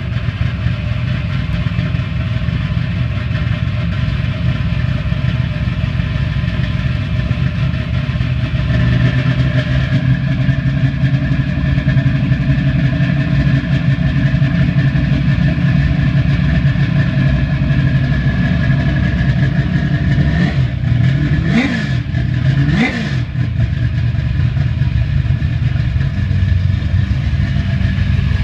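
1970 Chevrolet El Camino's 565-cubic-inch big-block V8 with a full roller valvetrain, just started and idling steadily through its exhaust. About three-quarters of the way through the throttle is blipped twice, the engine revving up and falling back each time.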